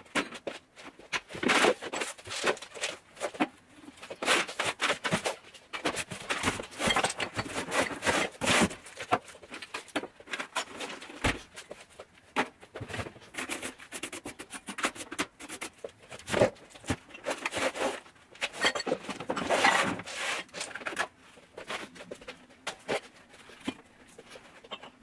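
Irregular clatter and rustling of small objects being handled, picked up and put down while tidying a room by hand, with a dull thump about eleven seconds in.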